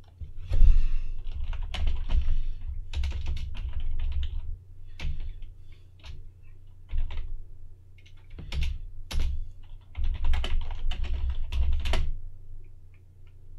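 Typing on a computer keyboard: quick runs of keystrokes in bursts of a second or two, with short pauses between, as a terminal command is entered.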